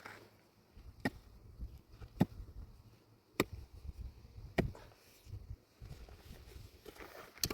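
A hand tool striking wood in steady, sharp blows about one every second and a bit: four evenly spaced strikes, a short break with lighter knocks, then another strike near the end.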